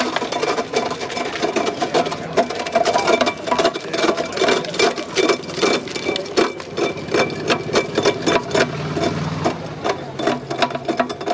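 Green Kamani ice-crushing machine running and cutting block ice into small pieces, a steady mechanical running sound under a dense, rapid crackle and clatter of ice being broken.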